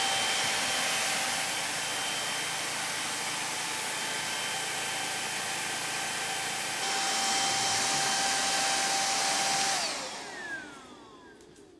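Vacuum cleaner motor running with a steady hiss and high whine; it gets louder about seven seconds in, then is switched off near the end, the whine falling in pitch as the motor spins down.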